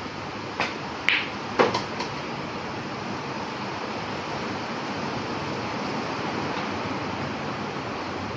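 Pool shot on a billiard table: a light tick of the cue tip on the cue ball, a sharp ringing clack of the cue ball striking the red object ball about a second in, then a heavier knock and two lighter ones as the red ball is pocketed. A steady background hiss runs beneath.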